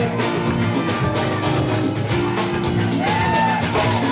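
Live dance band playing an upbeat number, with a steady drum beat under sustained instrument notes and a melody line coming in about three seconds in.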